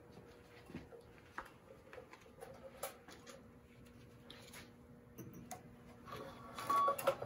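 Faint, scattered clicks and taps of steel piano wire and pliers against the tuning pins of a grand piano being restrung, with a busier patch of clicking and a brief ring near the end.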